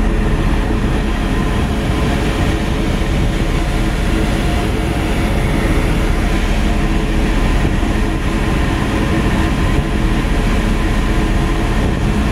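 A tugboat's diesel engines running steadily under way: a constant droning hum with a steady rush of wind and water over it.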